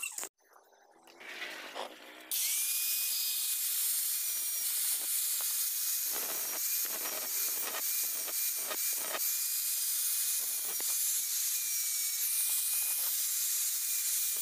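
Handheld angle grinder starting up about two seconds in, then grinding steadily on a steel gear's teeth: a loud, even hiss with a thin steady whine from the motor. The disc is dressing down the weld built up on a broken tooth.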